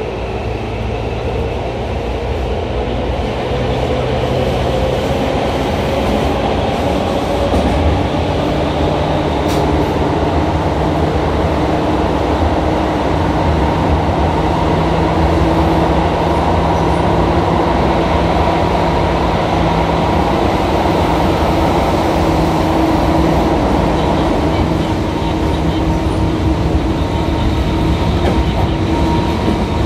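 Tobu 9000 series electric train heard from inside the car while running through a subway tunnel: a loud, steady rumble of wheels and motors. A motor tone climbs in pitch over the first several seconds as the train gathers speed, then holds steady as it cruises.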